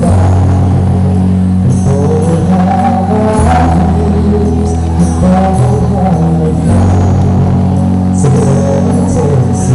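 Music with long held bass notes that change every couple of seconds under a moving melody.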